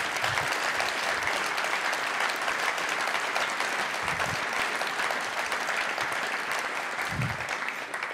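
Audience applauding: many hands clapping in a steady, dense clatter that starts to die away near the end.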